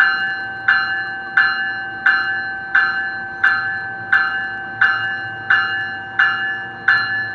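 A Metrolink commuter train's warning bell ringing steadily, one metallic strike about every 0.7 s, each clang fading before the next, over a low steady rumble.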